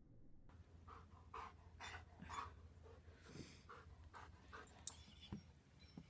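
Dog panting faintly, a run of short breaths about two a second. Near the end come a couple of sharp knocks, as the stick the German Shepherd is carrying catches on the wooden posts of the bridge.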